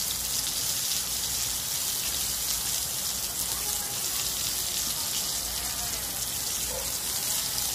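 Flour-coated salmon pieces frying in bubbling oil in a wok: a steady sizzle.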